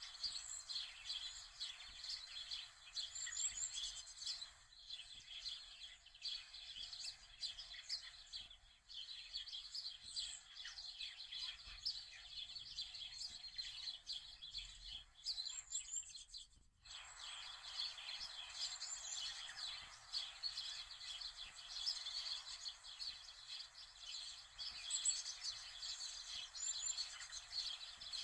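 Small birds chirping and twittering in a steady, dense high-pitched chorus. It cuts out abruptly for a moment about 17 seconds in, then carries on.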